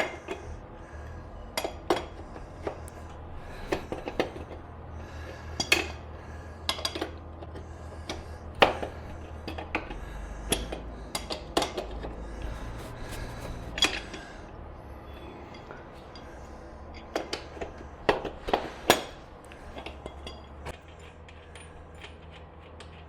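Irregular sharp clinks and taps of metal on metal from hand tools and motorcycle rear-axle hardware being handled, over a faint steady low hum.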